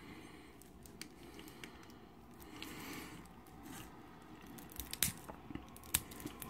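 Foil wrapper of a Yu-Gi-Oh booster pack being torn and peeled open by hand, with faint crinkling. Two sharp clicks come about five and six seconds in as the cards are handled.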